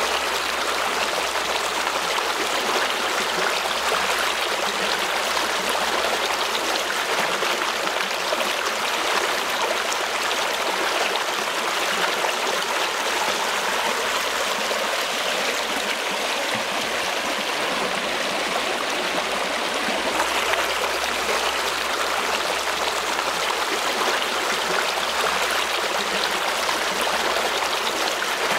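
A stream flowing, a steady rushing of water that holds an even level throughout.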